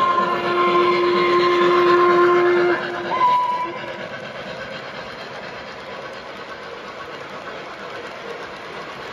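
O gauge model of a Southern PS-4 steam locomotive blowing its sound-system steam whistle, a long chord of several tones that stops about two and a half seconds in, then one short toot. After that, the steady sound of the passenger cars rolling over the track.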